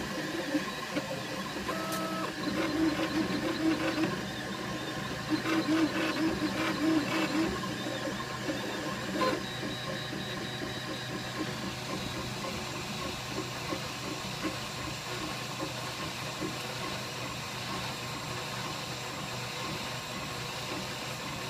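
Flashforge Dreamer 3D printer printing: its stepper motors whine in shifting pitches as the print head moves back and forth, over a steady low hum. The motor tones are strongest in the first several seconds, then settle into a steadier, quieter run.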